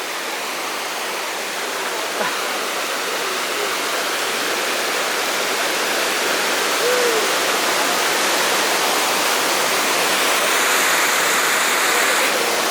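Waterfall rushing: a steady roar of falling and running river water that grows slowly louder.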